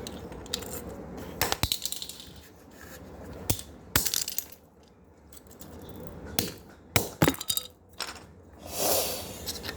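An old plastic and metal wall power socket being pried and broken apart by hand: a string of sharp cracks, clicks and small metallic clinks as its pieces snap and drop, with a brief scraping rustle near the end.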